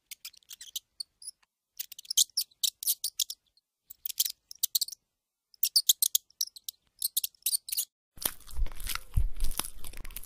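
Sound effects of an animated logo intro: quick runs of high, crisp clicks in several separate groups, then, about eight seconds in, a fuller rushing noise with a low rumble lasting about two seconds, ending abruptly.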